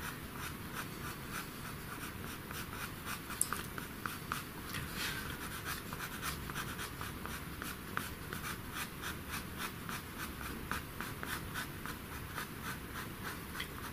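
Faber-Castell Pitt white pastel pencil scratching on pastel paper in quick, short strokes, about three or four a second, as it lays fine hair lines over darker fur.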